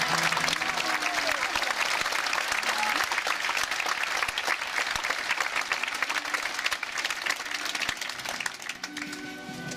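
Theatre audience applauding, dense clapping that thins out near the end.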